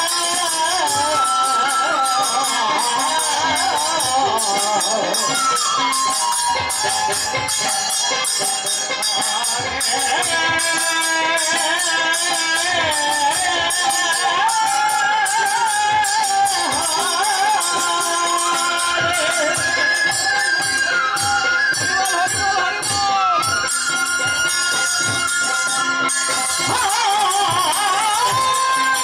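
Bengali devotional kirtan music: khol drums beaten in quick strokes and small brass hand cymbals (kartal) jingling under a gliding, ornamented melody line.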